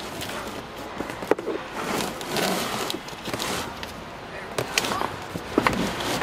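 Large flat-pack cardboard boxes sliding and scraping into a car's cargo area, with several sharp knocks as they bump the car's interior, most of them in the last two seconds.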